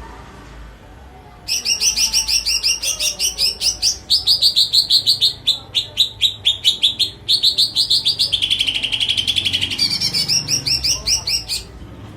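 Pet songbird singing: rapid high chirps, about six a second, in three bouts starting about a second and a half in, with a buzzy, lower trill in the middle of the last bout.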